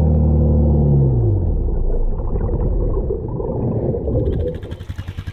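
Honda Rancher ATV engine heard muffled underwater, its note rising and then dying out about a second and a half in. A dull churning of water follows and fades near the end.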